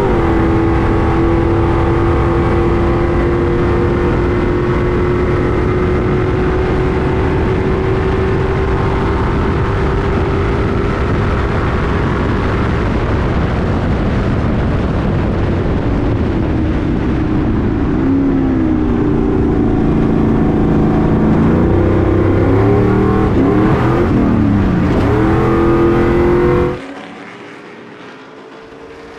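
LS V8 engine of a Stadium Super Truck heard from inside the cab, running hard at high revs. Its pitch climbs slowly along a straight, then dips and rises several times as the throttle is lifted and reapplied through turns. Near the end the sound drops abruptly to a much quieter, more distant sound of the trucks.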